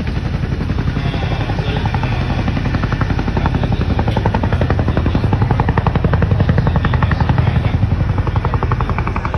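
Tandem-rotor CH-47 Chinook helicopter hovering, its rotors giving a steady, rapid chop that swells a little in the middle and eases near the end.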